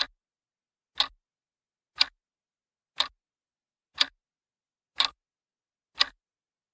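Countdown timer sound effect: clock-like ticks, one each second, seven in all, marking the seven seconds given to answer.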